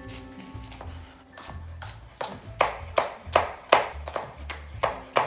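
Chef's knife slicing a green bell pepper into strips on a cutting board: even, sharp knife strokes, roughly two to three a second, begin about two seconds in. Background music with a steady bass beat plays throughout.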